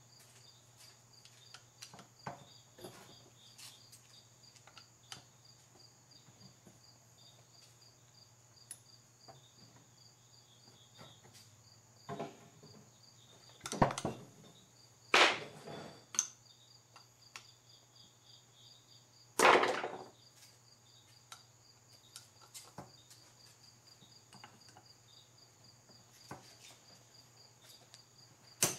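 Screwdriver and metal carburetor parts being worked on a Mikuni carburetor rack as its tight mounting bracket screws are loosened: scattered faint clicks and taps, with a few louder metal clatters about halfway through. A steady low hum and a thin high whine run underneath.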